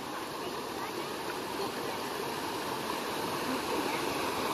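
Small rocky stream with a low waterfall: a steady rush of water spilling over rocks into a shallow pool, growing a little louder toward the end.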